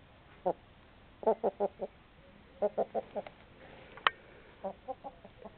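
Chickens clucking close by, in quick runs of three or four short clucks. There is one sharp click about four seconds in.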